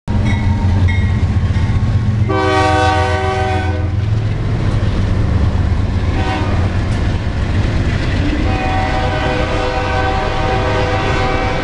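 BNSF GE diesel locomotives running under power as they pass, their engines a steady low drone, while the lead unit's multi-chime air horn sounds a long blast, a short toot, then another long blast. Container cars' wheels clatter on the rails as the stack cars follow.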